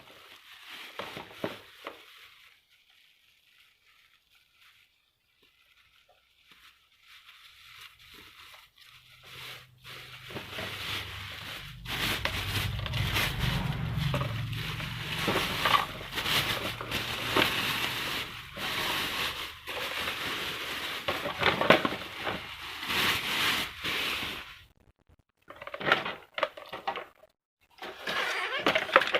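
Crackling, scraping handling noise of table-fan parts and their packaging, with scattered clicks and knocks. It starts after a quiet few seconds, runs dense for about a quarter of a minute, then breaks into short bursts near the end.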